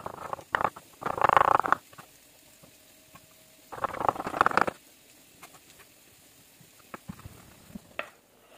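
Kitchen knife slicing sausages on a wooden cutting board: three short runs of quick taps in the first five seconds, then a few scattered light knocks.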